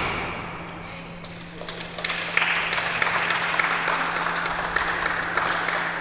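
Applause at the end of a badminton match, starting about two seconds in and carrying on.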